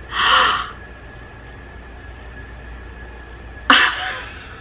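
A woman's breathy, excited gasps: a half-second breath out at the start and a sudden gasp about three and a half seconds in that fades quickly.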